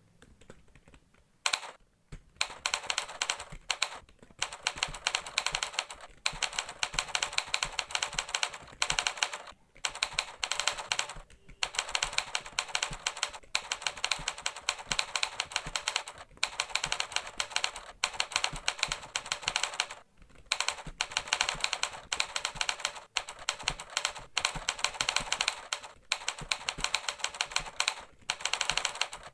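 Fast typing on a computer keyboard: a rapid run of key clicks that keeps going with short pauses every few seconds.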